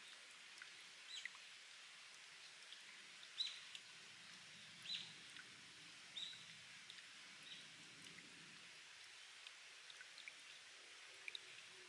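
Spring water trickling and dripping off rock in a faint steady hiss with scattered small drip ticks, while a bird gives a few short, high, falling chirps, about one every second and a half, in the first half.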